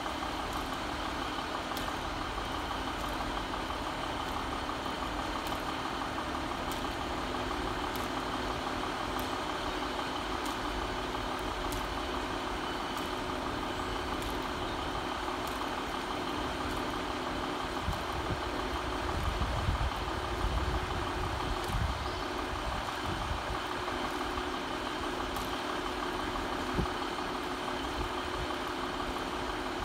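Class 150 Sprinter diesel multiple unit standing with its underfloor Cummins diesel engines idling: a steady hum, with a faint ticking about once a second.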